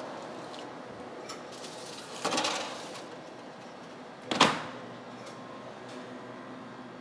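A sheet pan scrapes as it slides onto the metal rack of a Blodgett convection oven about two seconds in, then the oven door shuts with a sharp bang a couple of seconds later.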